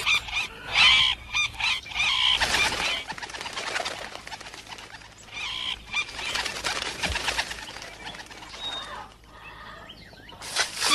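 Birds calling in short repeated chirps, with wing flaps; busiest in the first few seconds, then thinning out.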